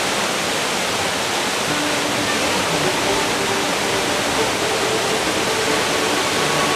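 Mountain stream water rushing steadily, with faint held music notes from about two seconds in.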